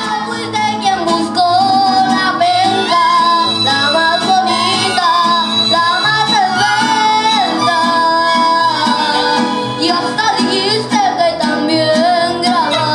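Mariachi band playing: violins, trumpets and guitars.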